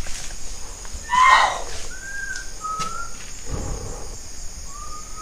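Short, clear whistled notes, each about half a second long, come at uneven gaps, the last one rising in pitch. A steady high chirring of night insects runs underneath. About a second in there is a brief, louder call-like sound.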